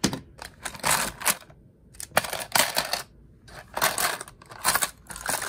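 A handful of Peterson lock picks, thin steel with plastic handles, clattering against each other and a plastic food-storage container as they are grabbed and handled, in about five rattling bursts.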